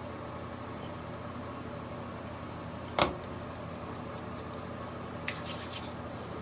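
A single sharp knock about three seconds in, then a quick run of light clicks from small objects being handled, over a steady electric hum.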